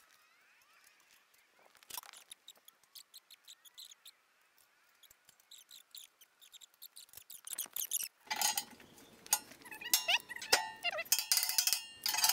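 Light metallic clicks, clinks and knocks from steel angle iron and locking pliers being handled and clamped to a welded steel stand. The clinks are scattered at first and come thicker and louder over the last four seconds.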